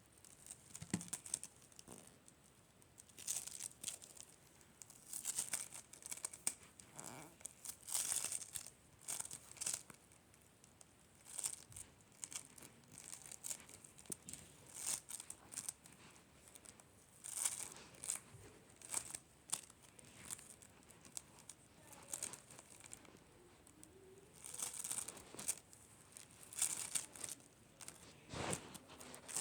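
Slime being pressed and stretched by hand, giving irregular short bursts of crackling about every second or two.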